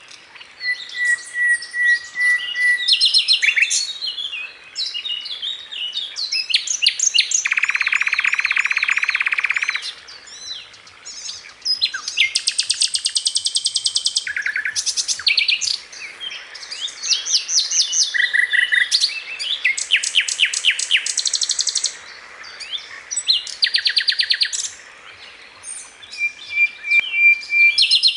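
Sikatan londo (flycatcher) song as used in a masteran tutor recording: phrases of rapid, high chirping trills and short whistled notes, each lasting a second or two and separated by brief pauses.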